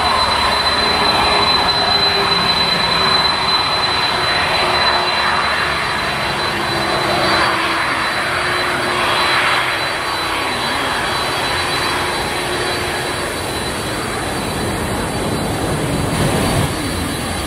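Boeing 767-300's twin jet engines at takeoff thrust: a steady, loud rushing roar as the airliner lifts off and climbs away, slowly fading.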